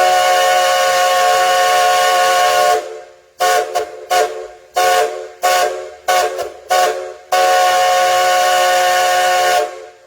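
Steam whistle of Nickel Plate Road 587, a 2-8-2 steam locomotive, blown in a long steady blast, then a quick series of short toots, then another long blast that cuts off near the end.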